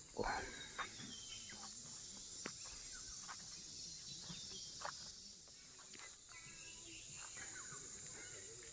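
Faint outdoor ambience: a steady, high-pitched drone of crickets or other insects, with scattered short bird chirps and a few light clicks.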